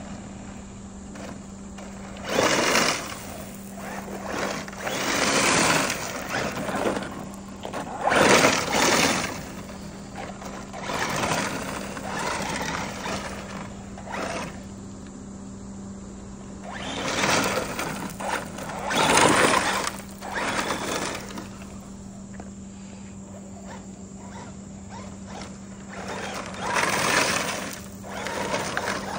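Traxxas Ford Raptor RC truck making repeated runs: its electric motor and tyres swell up and fade away about eight times, each run lasting one to two seconds. A steady low hum sits underneath.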